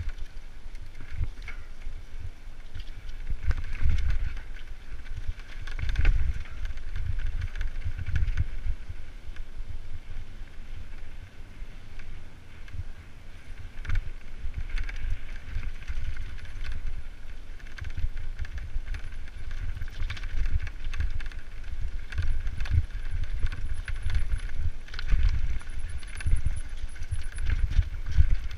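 Mountain bike descending a rocky track, heard from the rider's helmet camera: tyres rumbling over loose stones, with frequent sharp knocks and jolts as the bike hits rocks.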